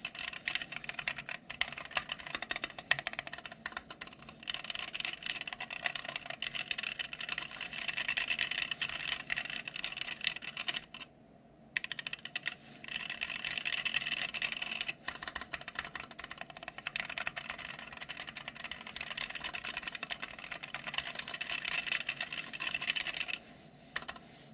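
Fast, continuous typing on a mechanical keyboard with Gateron Clear linear switches: a dense run of key clacks. The typing pauses for about a second around the middle and stops shortly before the end.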